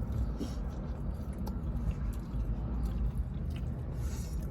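Chewing and eating sounds from someone biting into a fried chicken sandwich, with scattered small crunchy clicks, over a steady low rumble.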